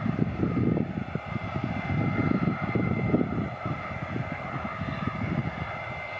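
Jet airliner's twin turbofan engines running at taxi power as the plane rolls past: a steady whine over a fluctuating low rumble.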